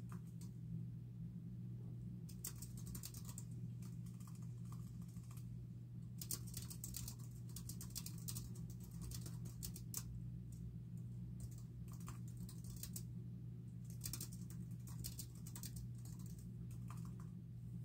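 Typing on a computer keyboard: quick runs of key clicks in bursts, with short pauses between them. A steady low hum runs beneath.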